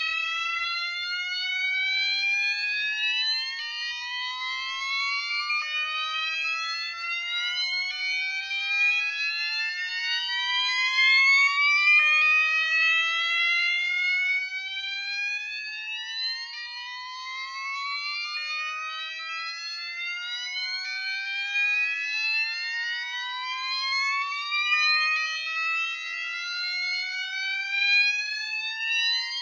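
Two fire alarm appliances, a multi-tone alarm and a Gentex, both sounding the slow whoop tone. Each gives repeated rising sweeps a few seconds long, and the two overlap out of step because one loops faster than the other.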